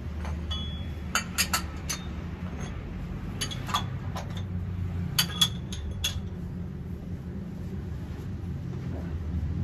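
Sharp metallic clinks of a steel socket wrench being fitted and worked on the car's underside during an oil change, in three short clusters over a steady low hum.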